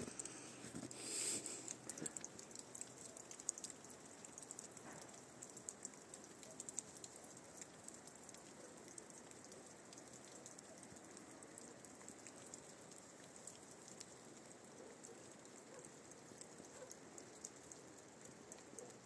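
Faint, steady patter of falling wet snow, a dense scatter of tiny ticks, with a brief louder rustle about a second in.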